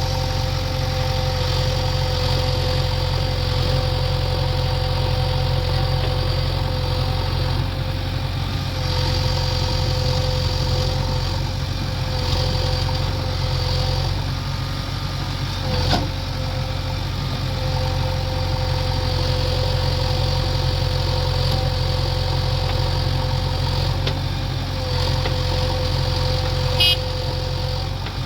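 Diesel engine of a JCB 3DX backhoe loader running steadily with a steady whine over its low hum, and one sharp knock about halfway through.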